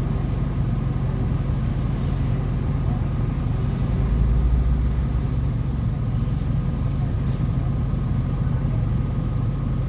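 An old vehicle's engine running steadily at idle, a continuous low rumble with a brief deeper swell about four seconds in.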